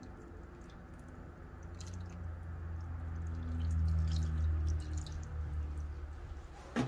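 Coconut milk poured from a plastic tub into a foil pan of seasoned fish and vegetables: a low, steady pour that swells to its loudest about four seconds in, then eases off. A sharp knock right at the end.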